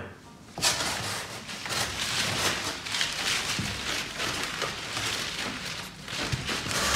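Plastic bubble wrap crackling and rustling as it is stuffed into a cardboard box, a dense run of small clicks that starts about half a second in.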